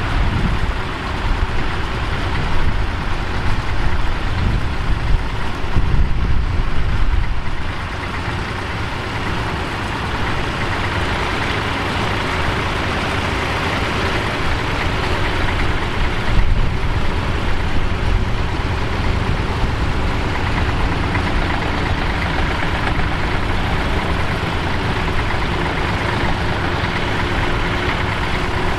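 Bukh Juno tractor's diesel engine running steadily under load while pulling a plough.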